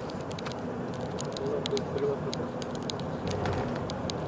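Car in motion heard from inside the cabin: steady engine and road noise with a faint held hum, and many light, irregular clicks over it.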